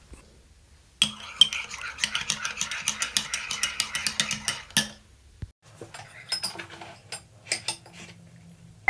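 About four seconds of dense, rapid mechanical clicking over a hiss that cuts off suddenly, followed by a few light clicks of a spoon against a china cereal bowl.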